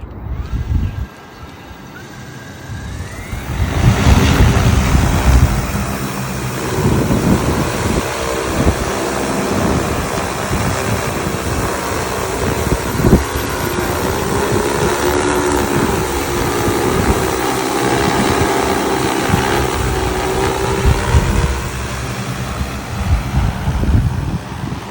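Large multirotor agricultural spraying drone spinning up with a rising whine, then a loud steady propeller drone from about four seconds in. Its pitch drifts up and down as the drone flies on a post-repair test flight, with rotor wash buffeting the microphone.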